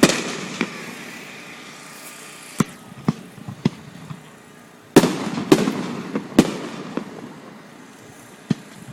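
Aerial fireworks bursting: scattered sharp bangs with echoing tails, then a loud cluster of several bangs about five seconds in.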